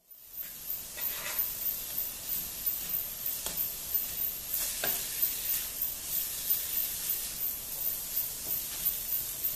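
Sauce sizzling in a hot non-stick wok of stir-fried shredded carrot, leek and onion, while a wooden spatula scrapes and tosses it in quick, regular strokes.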